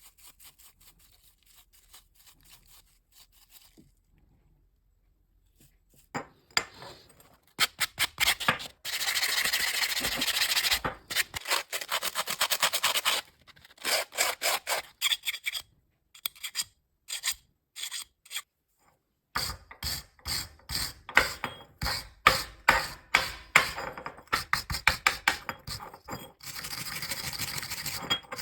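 Quiet at first, then repeated hand-worked scraping and rubbing strokes on the old hand drill's parts: first a few separate strokes, then a long stretch of steady scrubbing, then quick strokes a few times a second.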